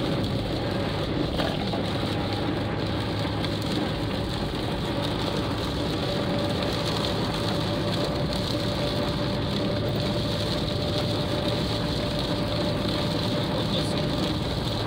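Steady driving noise inside a Volkswagen Gol on a highway in heavy rain, from the engine and from the tyres on the soaked road. Rain hits the windscreen, and a faint steady hum runs underneath.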